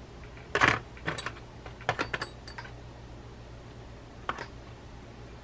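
A brief scrape, then a scatter of sharp clicks and light taps: small hard parts and tools being handled on a workbench during reel reassembly.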